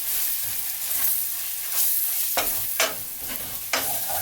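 Onion and spice masala sizzling in hot oil in a pan while it is stirred, with a few sharp scrapes of the stirring utensil against the pan in the second half.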